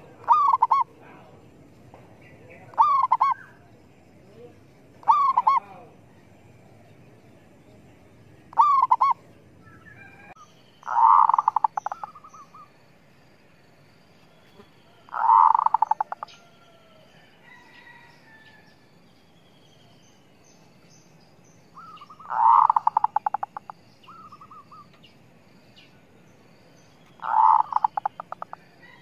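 Zebra dove (merbok) decoy cooing: four short coos in the first nine seconds, then four longer coos made of quick stuttering notes, a few seconds apart. It is a caged lure bird calling to draw wild zebra doves to the trap.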